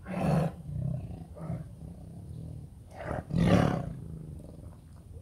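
Tiger snarling over a piece of chicken on the ground: two loud snarls about three seconds apart, with a few shorter, weaker ones between.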